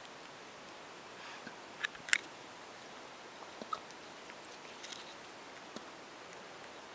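Alaskan Klee Kai puppy hiccuping: a few small, sharp clicks over a faint hiss, the loudest two close together about two seconds in, then three fainter ones spaced about a second apart.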